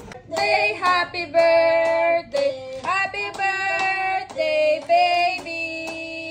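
A song with a high, childlike singing voice holding long notes over a light, steady beat.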